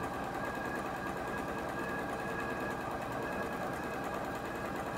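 Computerised domestic sewing machine running steadily, stitching a seam.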